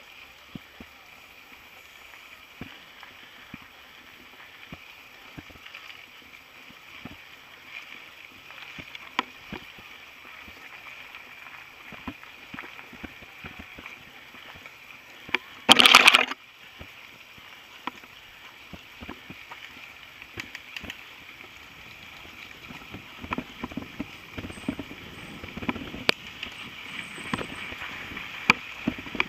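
Mountain bike on a rough dirt trail, heard through a camera mounted on the bike: scattered clicks, knocks and rattles from the bike and mount, growing busier near the end. About halfway through there is one loud noisy burst of about half a second.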